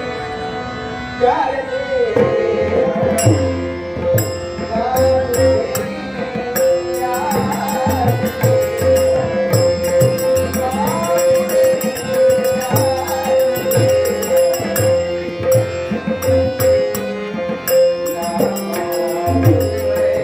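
A Dashavatari thumri played on harmonium over a steady held note, with tabla accompaniment and small hand cymbals (jhanj) struck in a quick, even rhythm from about three seconds in.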